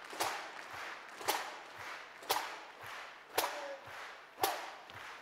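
Pipe band side drums struck in sharp single strokes, about one a second, echoing in a large hall.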